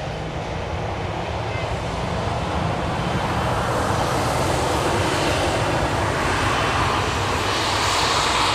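Airbus A330-303's General Electric CF6-80E1 turbofan engines roaring as the airliner rolls down the runway after landing. The noise grows steadily louder, peaks near the end, then eases slightly.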